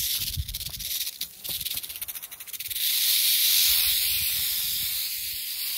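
A juvenile northern Pacific rattlesnake rattling its tail, a dry high buzz. It comes as rapid clicks at first, then turns steady and louder about three seconds in: the defensive warning of an agitated snake.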